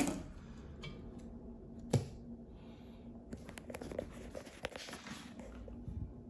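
Hands handling and fitting a windshield wiper blade: a sharp click at the start and another about two seconds in, with light scratching and rustling of plastic and metal between them.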